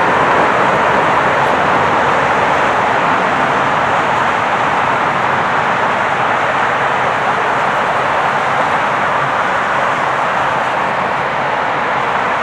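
Canadian Pacific freight train of tank cars rolling by, a steady noise of wheels on rail mixed with traffic on the highway below. It fades slightly as the end of the train moves away.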